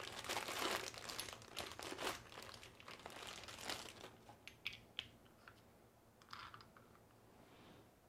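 Clear plastic packaging bags crinkling and rustling as hardware parts are handled in a cardboard box. The crinkling is busy through the first half, then thins to a few light rustles and clicks.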